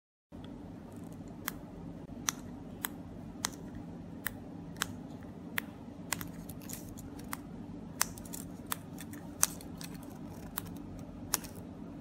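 Sharp plastic clicks of the buttons on four-button 433 MHz remote-control key fobs being pressed, about one every two-thirds of a second, over a steady low hum; the sound starts just after the beginning.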